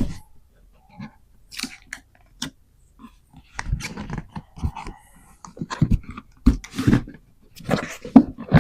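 Product packaging being handled and opened by hand: irregular taps and clicks, then denser rustling and scraping from about halfway through.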